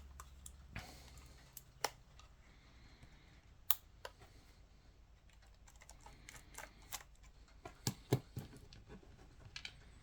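Irregular small clicks and taps of hand tools and parts on a Canon EOS 5D DSLR body being taken apart, the sharpest about four seconds in and again around eight seconds in.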